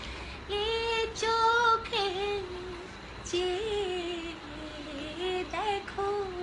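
Unaccompanied singing of a Bangla pop song. A high voice holds and bends long melodic notes without clear words, in several phrases separated by short breaths.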